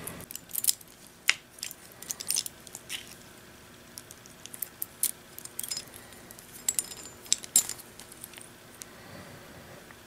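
Light metallic clicks and clinks at irregular intervals as a small barrel lock, its keys and a steel mounting plate are handled in the fingers.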